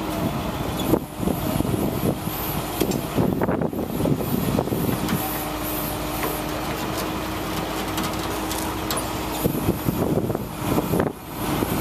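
1999 International digger derrick truck running with its hydraulics working the boom and auger as it moves, a steady engine hum with scattered knocks and clanks.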